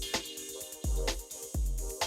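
Background music with a steady beat: deep kick-drum thumps, crisp snare or clap hits and sustained chords.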